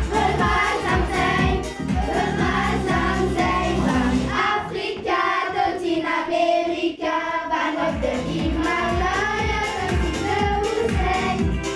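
A group of voices singing a song together over an instrumental accompaniment with a steady beat. The low accompaniment drops out for about three seconds in the middle, then comes back.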